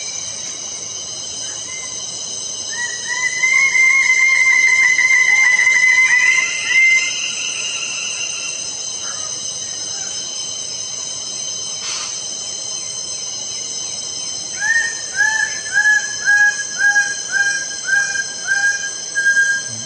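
Lesser birds of paradise calling loud, repeated notes: a quick run of notes at the start, then a longer fast series from about three to seven seconds in, and near the end a slower series of about ten notes, each rising then held. A steady high insect drone runs underneath, and there is one sharp click midway.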